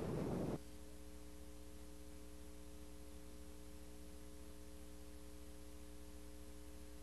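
Vehicle road noise cuts off abruptly about half a second in, leaving a steady electrical mains hum with faint hiss.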